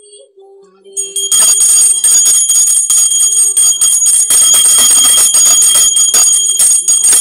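Handheld puja bell rung continuously with quick, even strokes during the naivedyam food offering, starting a little over a second in.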